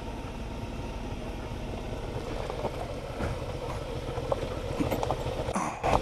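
Suzuki V-Strom 650XT motorcycle's V-twin engine running steadily on a rough gravel road, with tyres crunching over loose stones and scattered clicks of small rocks.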